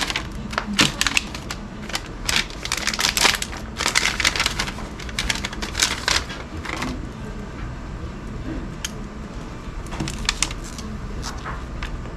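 A quick run of sharp clicks and rustles for about the first seven seconds, then only a few scattered clicks, over a faint low steady hum.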